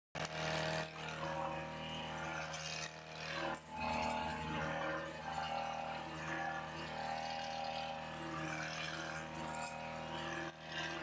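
Petrol strimmer (brush cutter) engine running steadily as its line cuts through grass and weeds, the engine note dipping briefly a few times.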